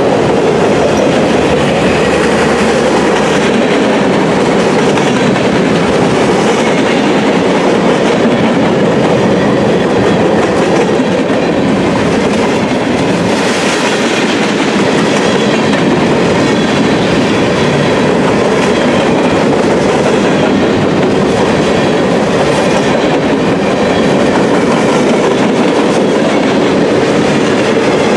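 Freight train cars rolling past close by, their steel wheels on the rails making a steady, loud rumble.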